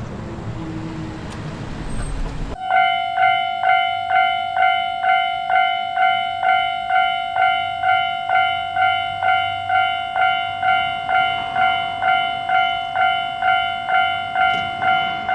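A train running by with a low rumble, then, after an abrupt cut a couple of seconds in, a Japanese level-crossing warning bell ringing steadily at about two dings a second.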